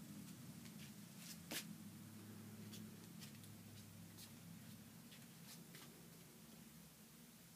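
Near silence: room tone with a low steady hum and a handful of faint scattered clicks.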